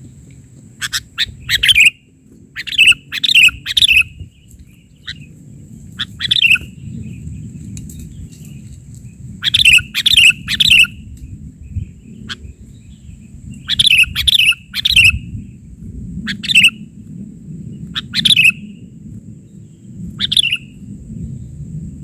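Sooty-headed bulbul (kutilang) calling: short bright phrases of two or three quick, falling notes, repeated every second or two. A low steady rumble runs underneath.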